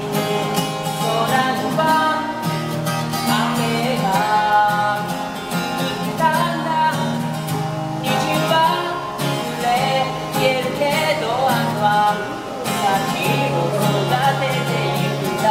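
A man singing while playing an acoustic guitar, the sung melody carried over the guitar's chords without a break.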